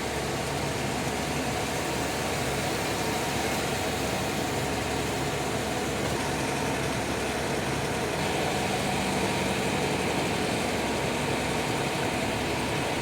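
Jeep Grand Cherokee being driven: steady engine and road noise, which cuts off abruptly at the end.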